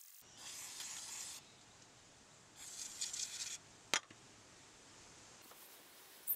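A strip of abrasive paper rubbed back and forth around a lawnmower's steel crankshaft stub, in two short scrubbing bursts of about a second each. Two sharp clicks follow, one about four seconds in and one near the end, and these are the loudest sounds.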